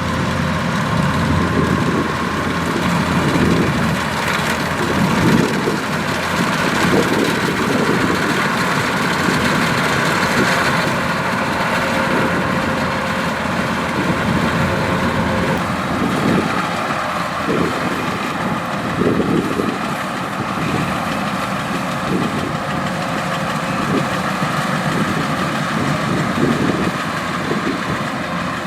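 Kubota DC-105X combine harvester running steadily, its diesel engine and machinery making a continuous mechanical drone with steady whining tones over a wavering low rumble.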